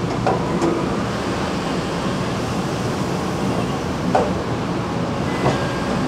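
Bin washer and dumper line with its roller conveyors running: a steady mechanical hum and rumble, with sharp clanks near the start, about four seconds in and near the end.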